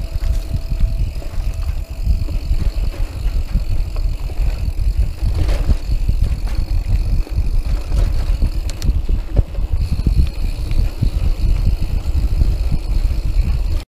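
Mountain bike riding fast over a dirt singletrack: a heavy low rumble of wind and trail vibration on the microphone, with many small rattles and knocks from the bike over the rough ground. It cuts off suddenly near the end.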